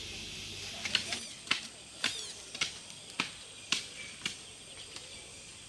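A run of about seven sharp knocks or strikes, evenly spaced at roughly two a second, stopping a little past the middle, over a steady high-pitched hiss.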